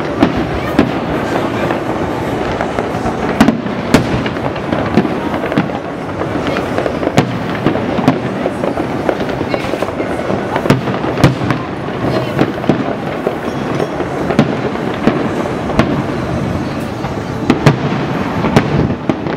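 A fireworks display: a continuous rumble and crackle of shells bursting, with many sharp bangs that follow one another every second or so.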